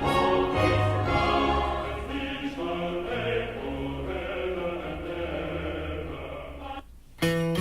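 Orchestral music with a choir played through Fluance powered bookshelf speakers, fading out near the end. After a short gap, a new song starts with acoustic guitar strumming.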